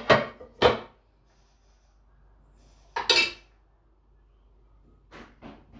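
Dishes and utensils clattering as they are handled: two sharp knocks right at the start, another about three seconds in, then a few softer taps near the end.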